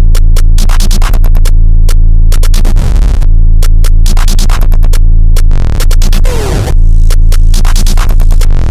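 Loud instrumental electronic music: a drum-machine beat of rapid hits over a steady, heavy bass, with a short falling synth sweep about six seconds in.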